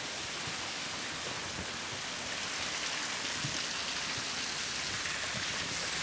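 Falling water from a waterfall splashing down, a steady hiss.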